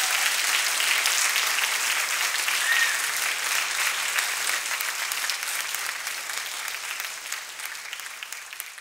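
Audience applause: many people clapping together, steady at first and then thinning out over the last few seconds.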